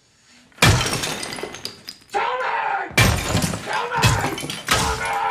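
A hammer smashing a bathroom sink with several heavy blows, breaking and shattering it. A man yells between the blows and shouts "Tell me!" near the end.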